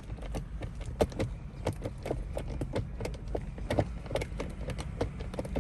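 Rapid, irregular clicking of a 2010 BMW 535i's electronic gear selector lever being pushed back and forth, several clicks a second; the transmission won't shift out of park.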